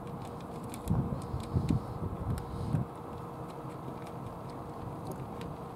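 Cat eating from a plastic dish: a scatter of small sharp clicks from its chewing. Between about one and three seconds in, a few louder low thumps sound over a steady low background.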